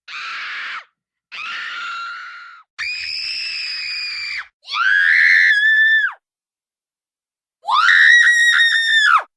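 Five separate children's screams of fear in a row, each cut off into dead silence before the next. The first two are breathier and quieter; the later ones are shrill and held, and the last, the loudest, wavers and drops in pitch as it ends.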